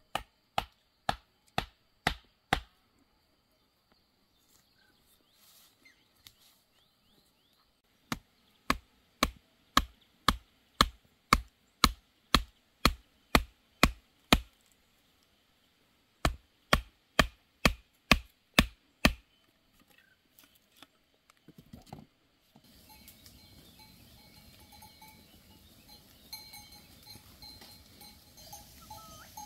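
A hatchet pounding a wooden stake into the ground in three runs of steady blows, about two a second. About three quarters of the way in it gives way to a grazing flock of sheep and goats, with small bells ringing.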